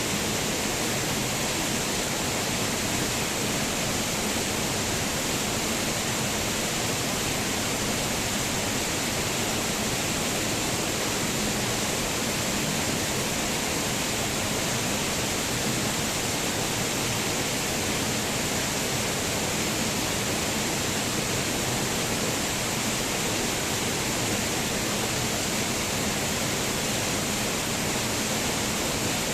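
Waterfall: water falling and splashing in a steady, even rush with no breaks or changes.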